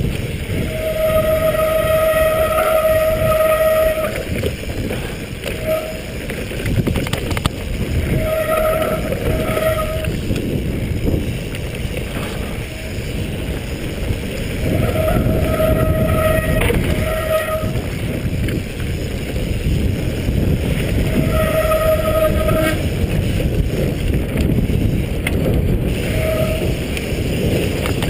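Mountain bike rolling down a dirt singletrack: wind buffeting the microphone with tyre and trail rumble, and a steady high squeal from the disc brakes that comes and goes about six times as the rider brakes.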